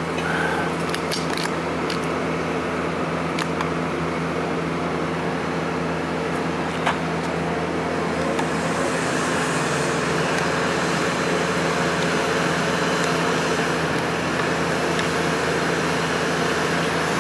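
A motor vehicle engine running steadily with an even hum, with a few faint sharp clicks near the start and one about seven seconds in.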